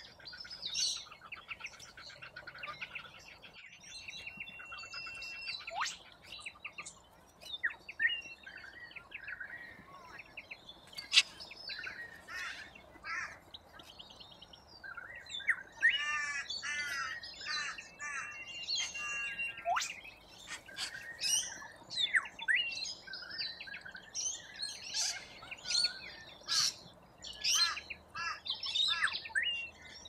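A feeding flock of corellas calling: many short chirps and harsh screeches overlapping, busiest in the second half.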